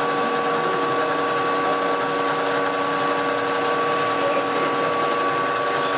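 Vertical knee milling machine running steadily, its end mill cutting an aluminum plate: a constant machine whine of several steady tones over a noise bed.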